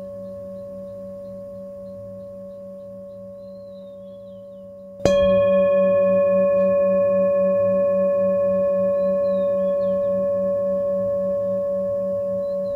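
A bell is struck about five seconds in, over the fading ring of an earlier strike. It rings on with several overtones and a steady pulsing wobble, slowly dying away.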